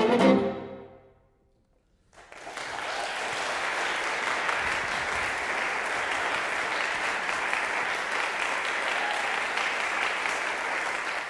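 A string quartet of two violins, viola and cello plays a short, loud final chord that dies away within about a second. After a moment of silence, audience applause starts about two seconds in and holds steady.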